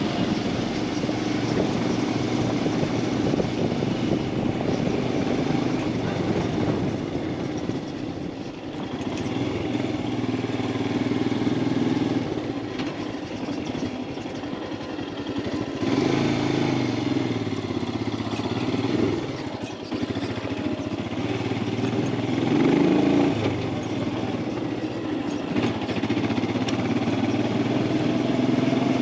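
Royal Enfield Himalayan 411's single-cylinder engine running under way, its pitch rising and falling with the throttle a few times past the middle, over road and wind noise.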